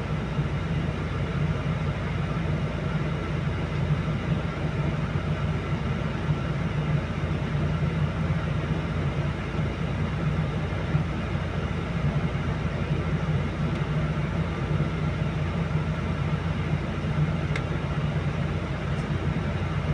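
Diesel engine of a Volvo crawler excavator running steadily as the machine creeps slowly up the loading ramps onto a lowbed trailer.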